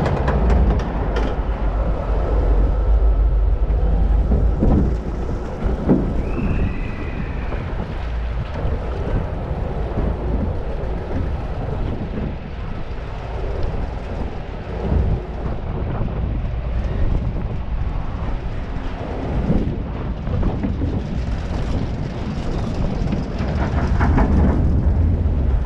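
Log flume boat riding along its water trough: a steady rushing of flowing water and a low rumble, with wind buffeting the microphone.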